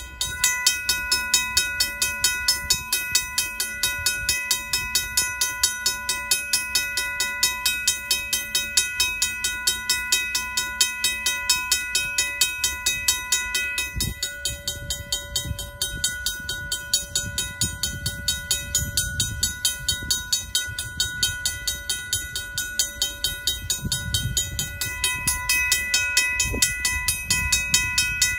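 A RACO mechanical railroad-crossing bell rings in rapid, even strokes from the moment it comes on, warning of an approaching train. A freight train's low rumble builds beneath it in the second half, with a single knock about halfway through.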